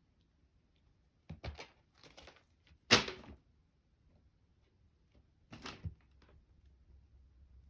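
A few short knocks and rustles, the loudest a sharp knock about three seconds in.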